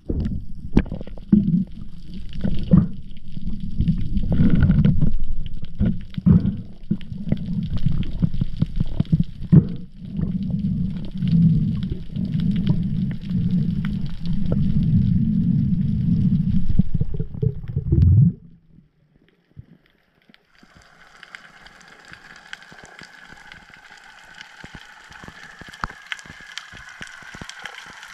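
Water sloshing and gurgling close to the microphone while a spearfisher swims at the surface, with many sharp clicks. About two-thirds of the way through it cuts off suddenly as he dives under. After a brief hush, a fainter steady crackling hiss of the reef underwater takes over.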